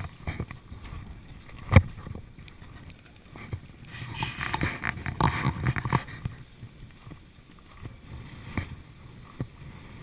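Gusty outdoor wind noise on the camera microphone, swelling into a louder rush for a couple of seconds in the middle, with scattered small knocks from handling and a sharp click just under two seconds in.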